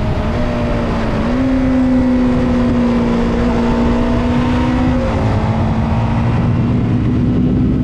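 KOVE 321RR motorcycle's parallel-twin engine running at high revs on the move. Its pitch steps up about a second in, holds steady, and drops back about five seconds in, with light wind noise on the microphone.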